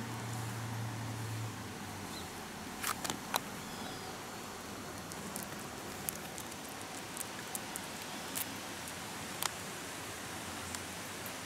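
Quiet outdoor background: a steady hiss, with a low hum for the first second and a half, and scattered short sharp ticks and clicks, a quick cluster of three about three seconds in and single ones after.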